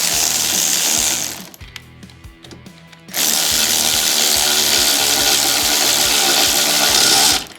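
Power tool spinning a 13mm socket to run down a jet-ski nozzle bolt, in two runs: a short one at the start and a longer one from about three seconds in that cuts off near the end.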